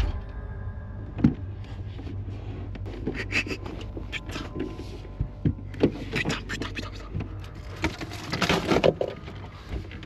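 Muffled knocks and scraping inside a closed fridge, over a steady low hum. There is a sharp knock about a second in, a few lighter knocks midway, and a longer scraping rustle near the end.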